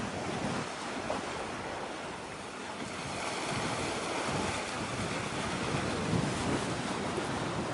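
Steady rushing of wind on the microphone mixed with the wash of sea waves.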